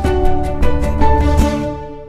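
TV station's closing theme music: sustained pitched notes over regular percussive hits, ending on a held chord that starts to fade near the end.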